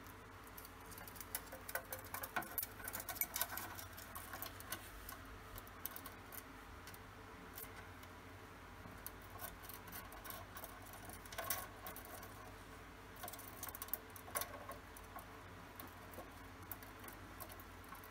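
Faint, irregular clicks and scratches of a cockatiel's feet and beak on a plastic toy house as it moves about on the roof.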